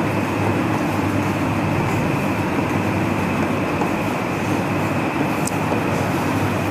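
Steady, even rumbling noise with no rhythm or pitch changes, with a single brief high click about five and a half seconds in.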